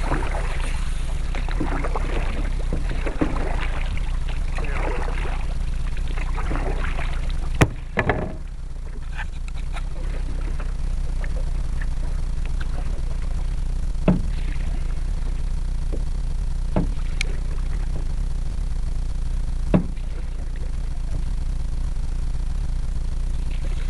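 Canoe being paddled: water splashing from paddle strokes for the first several seconds, a sharp knock about eight seconds in, then a few single light knocks spaced several seconds apart, over a steady low rumble.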